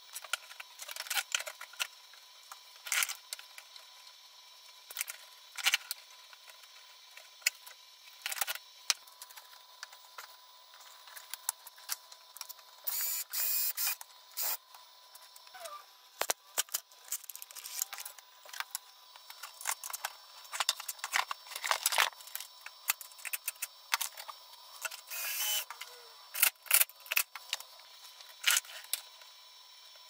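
Irregular clicks and rattles of a black plastic cable drag chain and small parts being handled. Twice there is a longer rasping burst, once about halfway through and once near the end.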